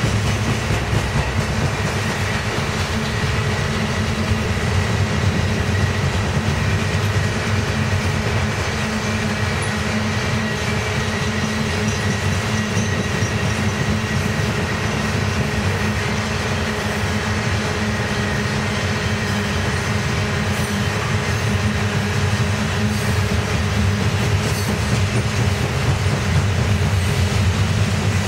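CSX coal hopper cars rolling past close by: steel wheels clattering over the rail with a steady heavy rumble, and a faint, thin high whine of wheel on rail.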